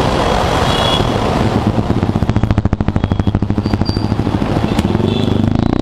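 TVS Jupiter scooter's single-cylinder engine running in slow city traffic, with wind and traffic noise on the helmet microphone. The engine beats evenly for a few seconds in the middle, then its pitch rises near the end as it picks up speed.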